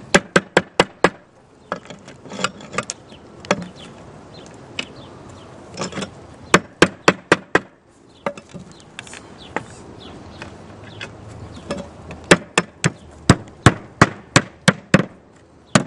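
Hammer driving 10-penny nails through a ridge vent into the nail holes of roof tiles, fastening the last course of tile. The blows come in quick runs of sharp strikes with single taps between, and the longest run is near the end.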